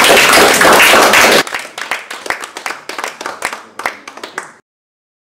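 Audience applauding. The clapping is dense and loud at first, falls off sharply about a second and a half in to scattered claps that thin out, and then cuts off abruptly near the end.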